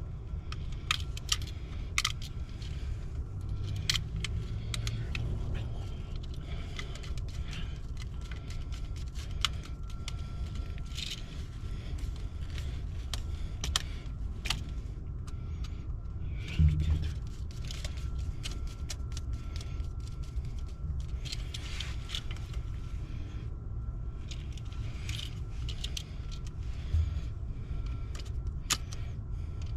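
Small metal tools and hardware clinking and clicking at irregular intervals during electrical rework, over a steady low hum, with a duller knock about halfway through.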